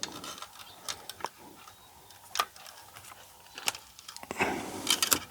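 Scattered light clicks and taps of small electronic parts and tools being handled, with a small cluster of them near the end.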